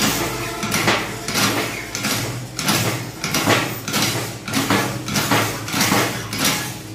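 Wire-mesh shear snipping off the protruding ends of steel wires at the edge of a welded mesh panel. It makes a regular run of sharp metallic cuts, about two a second, over a steady low hum.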